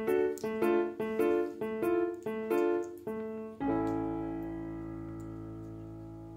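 Background piano music: a quick run of short, evenly spaced chords, then a final held chord about three and a half seconds in that slowly fades away.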